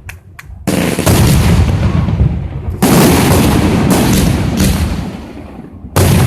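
Fireworks going off: a few small cracks, then three loud bangs about a second, three seconds and six seconds in, each trailing off over a couple of seconds.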